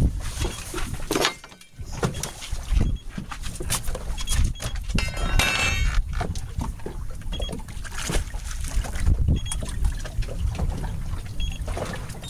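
Water sloshing and slapping against a fishing boat offshore, with wind rumbling on the microphone and irregular knocks. A brief rapid clicking comes about five seconds in.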